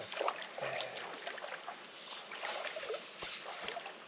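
Shallow river water splashing and trickling, with irregular small splashes and knocks.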